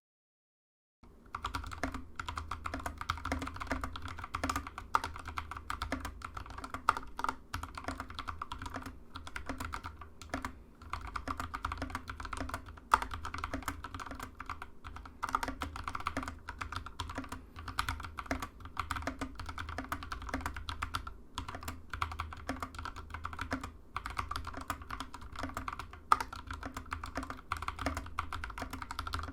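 Typing on a hand-built 61-key mechanical keyboard with lubed Kailh Halo True tactile switches and foam under the PCB: a fast, continuous stream of keystroke clacks that starts about a second in.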